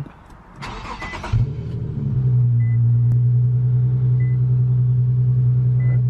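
Infiniti Q50's engine being started: a brief crank on the starter, catching about a second and a half in and settling into a steady idle. A short beep repeats about every second and a half.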